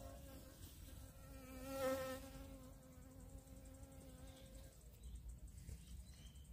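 A honeybee's wings buzzing in flight: a steady hum that swells as it passes close about two seconds in, then fades away a little past the middle.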